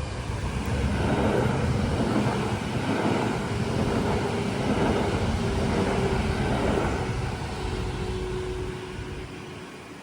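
A train passing over the level crossing: the rumble of wheels on the track swells about a second in, holds for several seconds and fades away near the end.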